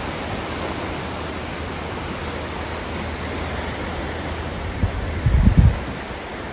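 Steady wash of sea surf breaking at the foot of high coastal cliffs. About five seconds in, gusts of wind buffet the microphone in low rumbles.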